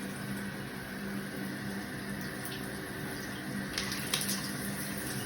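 Water running steadily from a Moen shower head. A couple of sharp taps come about four seconds in.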